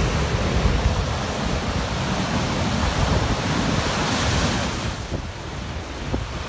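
Nor'easter storm surf breaking and washing up a beach, a steady rush of water and foam, with wind on the microphone. It eases a little about five seconds in.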